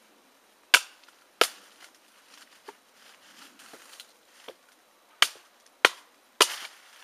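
Cold Steel Gurkha Kukri blade chopping into a small log. There are two sharp strikes about a second in, then three more, each a little over half a second apart, near the end. Fainter knocks and the rustle of leaf litter fall between them.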